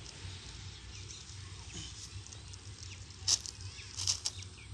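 Newspaper crinkling and rustling in a few short bursts from about three seconds in, as it is handled, over a low steady hum.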